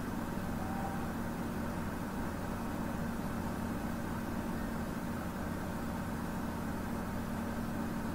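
Steady low hum over an even hiss, unchanging, with no distinct events.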